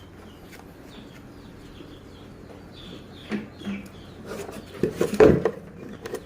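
Small birds chirping faintly in the background, with a short, louder burst of noise about five seconds in.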